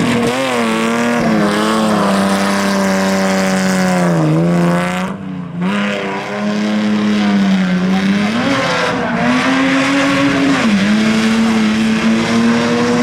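Rally car engine running hard at high revs, its pitch repeatedly falling and climbing again as the driver lifts off and changes gear, with a brief drop in level about five seconds in.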